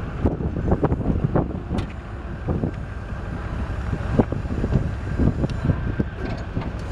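1984 Ford F150's 5.8-litre V8 idling, with wind gusting over the microphone in irregular thumps.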